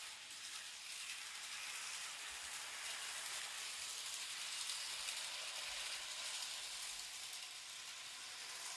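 Z gauge model train running on the layout track, a faint, fine hissing rattle that swells slightly and then eases off.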